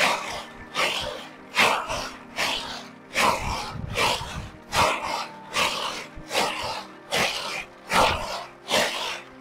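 Tiger nuts being rubbed and churned by hand in a large woven basket: a rhythmic dry rattling swish a little over once a second, as the nuts are scoured clean of soil without water.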